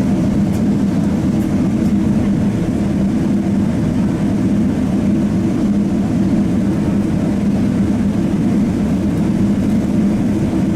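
Steady jet engine and airflow noise heard inside the passenger cabin of a Boeing 777-300, a constant low drone.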